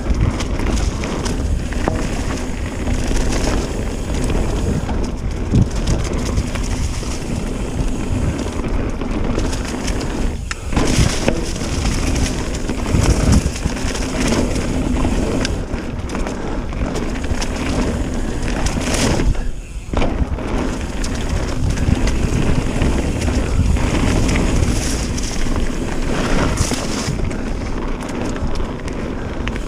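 Wind rushing over the action camera's microphone during a fast descent on a Trek Remedy mountain bike, with tyres running over dirt and rock and the bike knocking and rattling over rough ground. Two brief lulls come about ten and nineteen seconds in.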